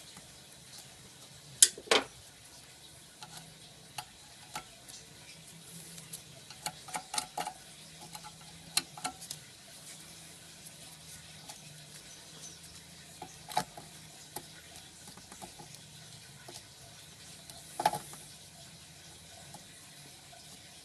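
Hands handling parts in an engine bay: scattered clicks, taps and knocks of plastic and metal parts being moved and fitted, the sharpest knocks about two seconds in and twice more later on.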